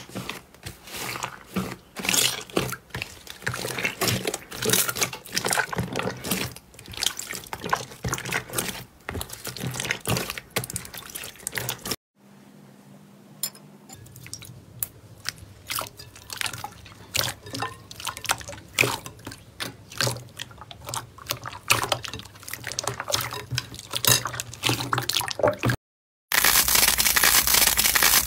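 Hands squeezing and kneading wet slime, close-miked: squelching with a dense run of small pops and crackles as air bubbles burst. Near the end comes a louder, steady dry tearing and crinkling as a stiff clay-like slime is pulled apart.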